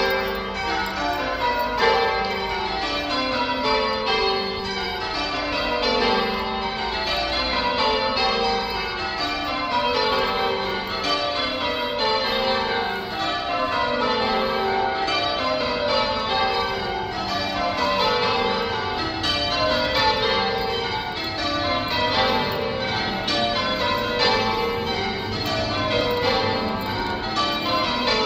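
A ring of church tower bells being rung in sequence in English change-ringing style. Each row of strokes runs down from the highest bell to the lowest, and the rows repeat steadily without a pause.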